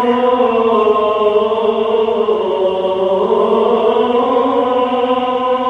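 A muezzin chanting the Friday call to prayer (adhan): one male voice holds a long, ornamented phrase whose pitch sinks slowly in the middle and climbs again.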